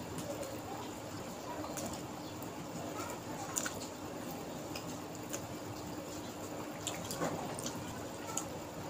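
Faint wet chewing and mouth smacks of a man eating rice and egg curry by hand, with small clicks of fingers mixing rice on a steel plate, over a low steady hum.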